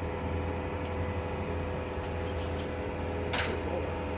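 Steady mechanical hum with a few light clicks and one sharper tap about three seconds in.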